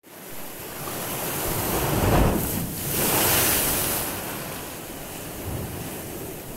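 Small sea waves breaking and washing over the shore at the water's edge. The surf swells loudest about two seconds in and again around three seconds, then settles.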